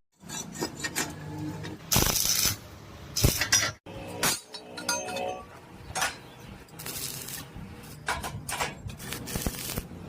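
Steel pieces clinking and scraping against each other in irregular short bursts, as metal parts are handled and shifted.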